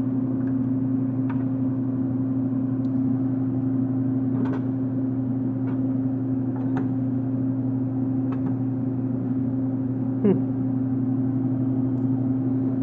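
Drink vending machine humming steadily, with a few faint clicks and one short, louder knock about ten seconds in.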